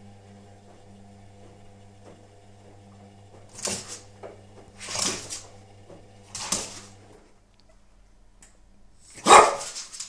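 French Bulldog puppy barking four times, with a pause between each bark; the last bark is the loudest. Under the first barks a front-loading washing machine runs with a steady hum that stops about seven seconds in.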